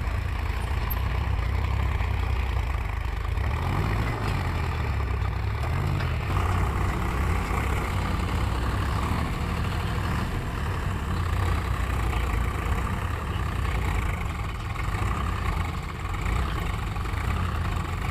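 A heavy vehicle's engine running steadily near idle, with a brief rise and fall in pitch about four seconds in.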